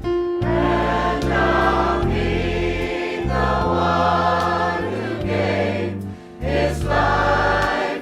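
Gospel choir singing with instrumental accompaniment, held bass notes changing under the voices, with a brief break about six seconds in.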